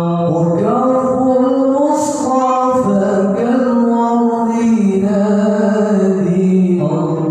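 A man singing a sholawat into a microphone, unaccompanied, in long drawn-out notes that bend and ornament slowly, rising about half a second in and falling back near the end.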